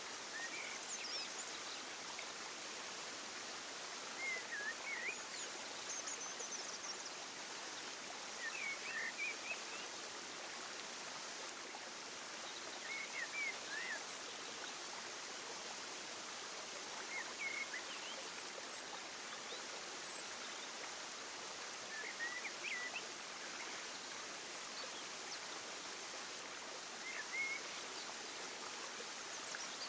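Outdoor nature ambience: a steady rushing hiss like running water, with short bird chirps in brief clusters every few seconds.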